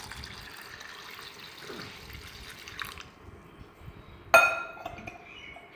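Water poured from a stainless-steel pot into a steel bowl of rice and toor dal to soak them, a steady splashing that stops about three seconds in. About four seconds in comes a single sharp metallic clink that rings briefly.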